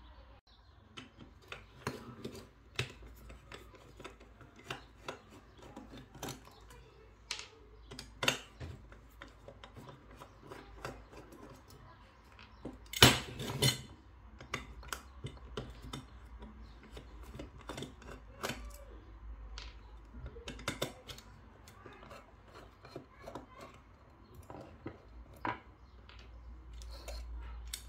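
Scattered small metallic clicks and scrapes of a screwdriver working the screws of an aluminium motor-controller case to open it, with the case shifted and handled on a bench, and a louder double knock about thirteen seconds in.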